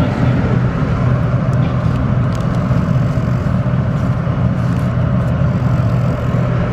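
Steady street traffic noise, led by a low, even engine hum from vehicles close by.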